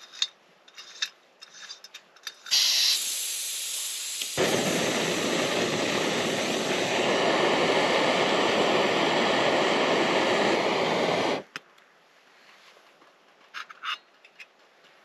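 Small screw-on gas canister camping stove: clicks as the canister is fitted to the burner, gas hissing from about two and a half seconds in, then from about four seconds in the burner running with a steady rushing noise, which stops suddenly about eleven seconds in.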